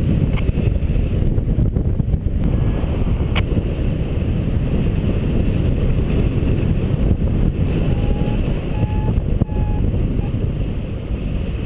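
Steady rush of airflow over the microphone of a paraglider pilot's camera in flight, with three short beeps about eight to nine and a half seconds in.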